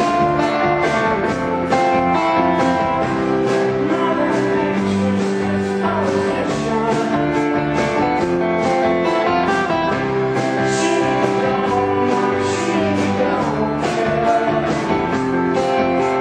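Live rock band playing: electric guitars, bass guitar and drums, with a steady beat.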